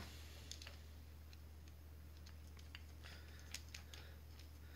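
Faint, scattered light clicks and ticks of a small plastic solenoid-valve connector being handled and worked with a small screwdriver, over a low steady hum.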